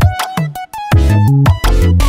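Electronic background music with heavy, choppy bass notes and synth tones.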